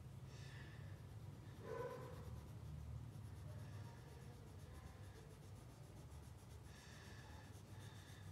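Faint scratching of a crayon being rubbed back and forth across paper, over a low steady hum.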